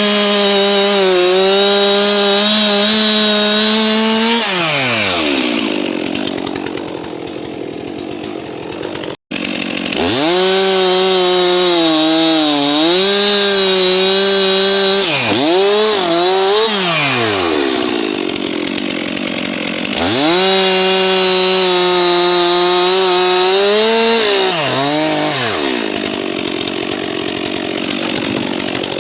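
Stihl MS 362 C-M two-stroke chainsaw cutting firewood: three times the engine runs at full throttle through a cut, its pitch sagging and wavering under load, then falls back to idle for a few seconds.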